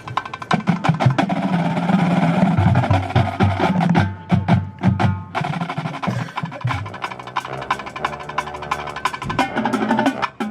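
Percussion ensemble playing: rapid, dense drum strokes over pitched mallet-keyboard and low bass notes, with the drum strokes thinning briefly midway.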